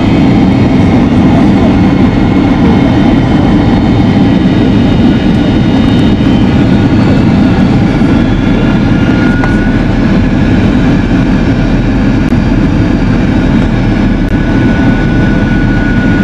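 Boeing 767-300ER cabin on final approach: the steady, loud noise of jet engines and rushing air heard from inside. A thin, steady whine comes in about halfway and is clearest near the end.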